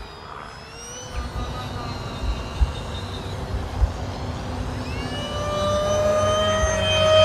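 Twin 70mm electric ducted fans of an RC A-10 jet whining in flight. About five seconds in, the whine rises in pitch and grows louder.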